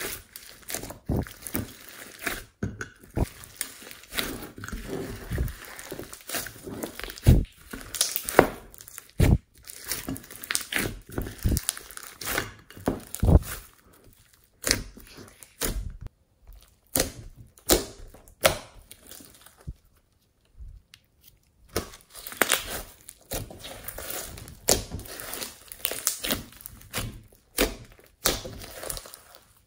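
Glossy slime mixed with glitter and foam beads being squeezed, folded and pressed by hand: a steady run of wet clicks, pops and crackles as trapped air bursts out of it, with a short pause about twenty seconds in.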